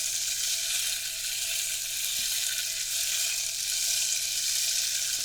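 Water circle, a circular rain stick, turned so its beads keep rolling: a steady, unbroken rain-like hiss, mostly high-pitched.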